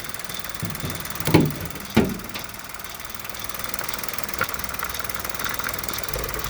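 Hyundai-Kia G3LA 1.0-litre three-cylinder engine idling with its accessory belt removed, with a metallic rattle from a worn timing chain; a couple of sharp knocks stand out in the first two seconds.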